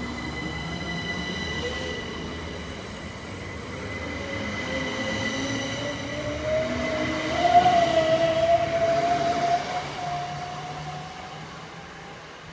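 Southern Class 377 Electrostar electric multiple unit pulling away from the platform, its whine rising in pitch as it gathers speed. Loudest about eight seconds in, then fading as the train draws off.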